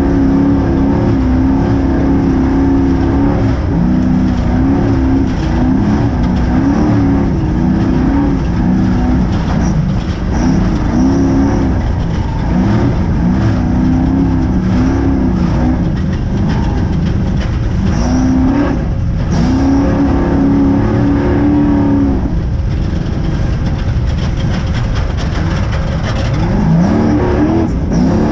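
Spec Trophy Truck V8 heard from inside the cab at race pace, revving up and falling back again and again as the throttle is worked and gears change, with short lifts about two-thirds of the way through and near the end. Under the engine runs a constant low rumble with scattered knocks from the truck crossing rough desert ground.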